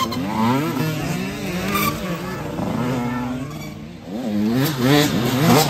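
Youth dirt bike engines revving hard past on a dirt trail, the pitch climbing and dropping again and again. The first bike fades away to its quietest about four seconds in, then another comes up loud near the end.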